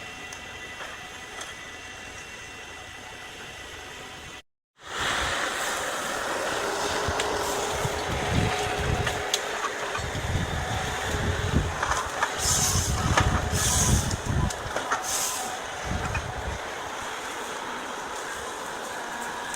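Heavy forestry machinery running. The sound cuts off briefly about four and a half seconds in, then comes back louder, with irregular heavy thumps and cracks.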